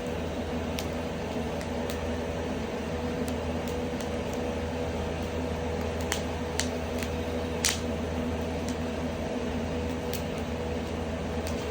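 Ceiling ventilation fan drawing smoke from an indoor wood fire, running steadily with a loud, even hum that nearly buries the fire. A few sharp pops of burning firewood crackle through it, the loudest about two-thirds of the way in.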